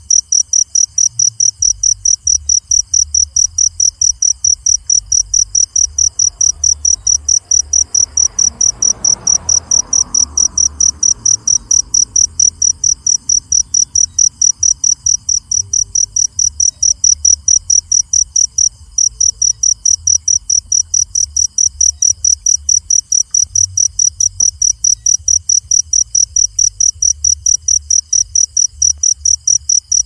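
Cricket chirping steadily and loudly, a high-pitched pulse repeated about four times a second, pausing once briefly.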